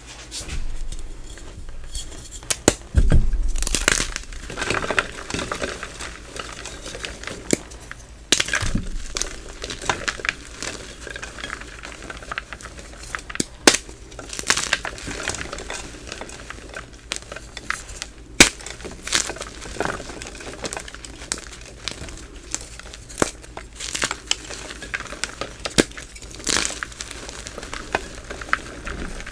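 Hands crushing and squeezing blocks of fresh and reformed gym chalk, crumbling them to powder: irregular crunches and crisp snaps, with softer crumbling in between.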